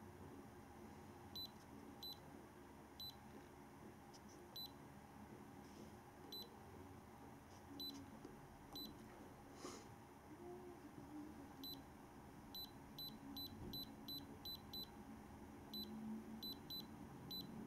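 Faint, short, high-pitched keypress beeps from an iCarsoft i907 handheld scan tool as its buttons are pressed to step through the menus: about one beep a second at first, then several a second over the last few seconds as the cursor runs down a long list.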